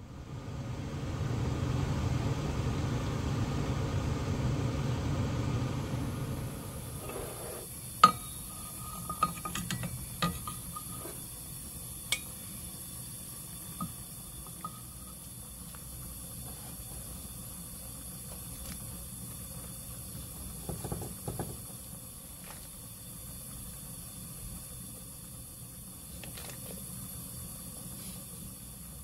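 Pork backbones boiling hard in a stainless steel stockpot: a loud rumbling bubbling that drops after about six seconds to a quieter steady hiss of the pot on the heat. A ladle clinks against the pot a handful of times around the middle, with a few more light taps later.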